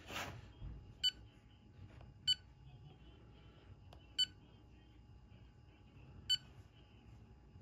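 Touchscreen control panel of an AlgoLaser DIY Kit MK2 laser engraver beeping as its buttons are tapped: four short, high beeps, a second or two apart.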